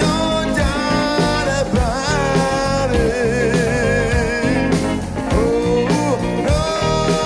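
Live disco band playing a dance track: drum kit beat, bass, guitar and keyboards, with a singer holding long notes with vibrato over it.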